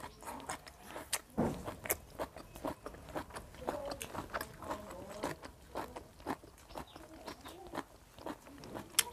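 Close-up chewing of boiled pig intestine, with irregular wet mouth clicks and smacks through a clip-on microphone.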